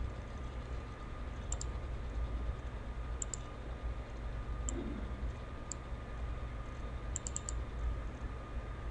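Computer mouse clicks, scattered singly and in quick pairs, with a quick run of four near the end, over a steady low hum and a faint steady whine from the recording setup.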